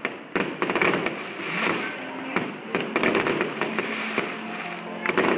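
Fireworks going off: a dense, continuous run of sharp pops and crackles, with several louder bangs along the way.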